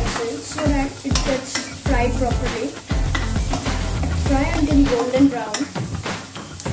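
Wooden spatula stirring chopped onion and green onion sizzling in a wok, with repeated taps and scrapes of the spatula against the pan. Background music plays over it.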